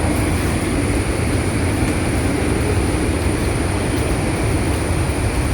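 Loud, steady rush of a large waterfall, Athirappilly Falls in heavy flow, a deep even noise of falling water with no breaks.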